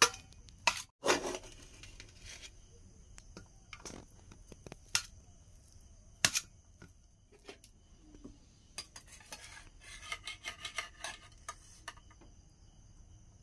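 Perforated steel ladle clinking and scraping against a steel plate and pot while cooked rice and fried vegetables are served: a few sharp separate clinks, then a quick run of small clinks about nine seconds in.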